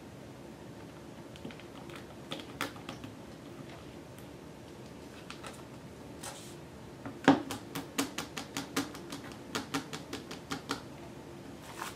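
Fingertips tapping and pressing on a clear acrylic stamp handle laid on a paint palette: a few light clicks, then from about seven seconds in a quick run of sharp ticks at four or five a second, like typing.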